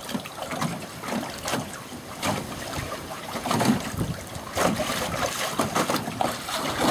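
Wind buffeting the microphone over choppy water slapping and splashing against the hull of a small john boat tied beside the blind, in uneven gusts and slaps.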